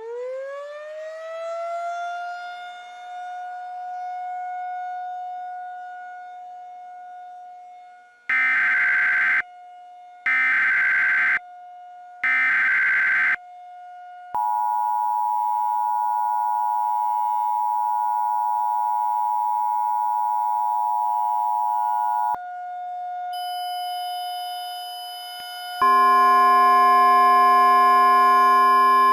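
Mock Emergency Alert System broadcast: a siren winds up and holds a steady tone. About eight seconds in come three short bursts of SAME header data, then the two-tone EAS attention signal sounds for about eight seconds, and near the end a loud chord of several steady tones begins.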